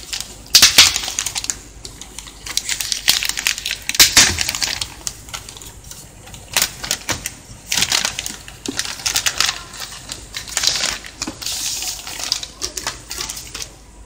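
Plastic packaging crinkling and rustling in irregular bursts as hands peel a blue anti-static bag and clear film off a laptop LCD panel and slide the panel out.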